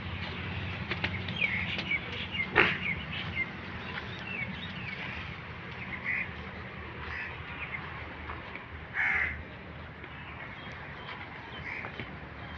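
Birds giving short calls again and again, with a sharp knock about two and a half seconds in.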